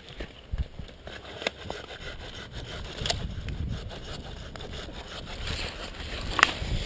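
Dry bush twigs and branches scraping, rustling and snapping in a string of sharp clicks and crackles, over a low rumble of wind on the microphone.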